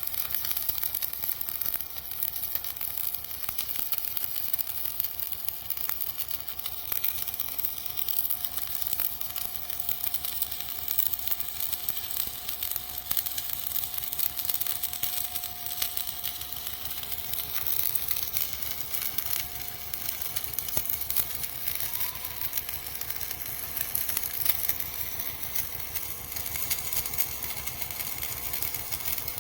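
Stick (shielded metal arc) welding arc running continuously, a steady crackle and hiss of many fine pops that does not let up.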